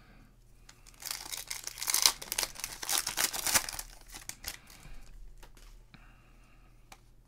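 A sealed trading card pack's wrapper torn open and crinkled by hand. A dense crackle starts about a second in and lasts about three seconds, followed by a few light clicks.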